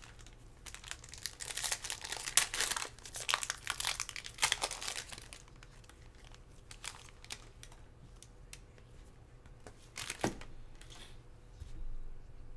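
Foil wrapper of a trading-card pack crinkling and tearing as gloved hands open it: a dense, crackly run for about five seconds, then a few scattered crinkles and one sharp crinkle near the end.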